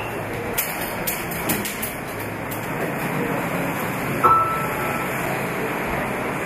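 Manual typewriter: a few sharp key clacks, then one bright ding of its bell about four seconds in, over a steady hiss.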